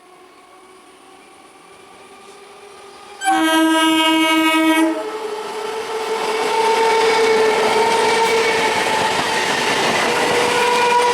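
An Indian Railways train approaching a level crossing: faint at first, then one loud horn blast of about a second and a half, a little over three seconds in. The train then runs past close by, a loud steady noise of wheels on the rails with a held tone running through it.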